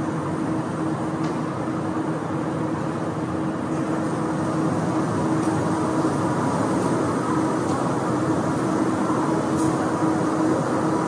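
Metro train running, a steady rumble with a constant low hum throughout.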